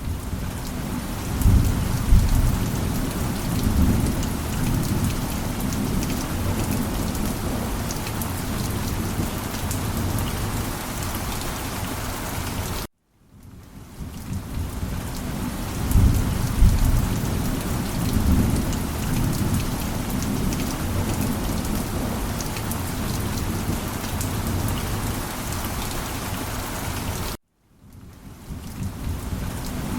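Steady rain falling, with low rumbles of thunder. The sound cuts out to silence twice, about halfway through and near the end, and each time fades back in with a thunder rumble, as a looped recording restarting.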